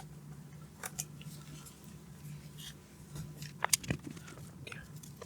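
A few faint, sharp clicks and ticks of small parts being handled during disassembly of an Xbox console, heard over a steady low hum.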